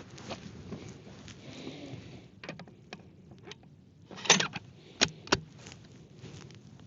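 Bolt of a Ruger Precision Rifle being worked by hand: a loud cluster of metallic clacks about four seconds in, then two sharp clicks less than a second later, with a few lighter clicks before.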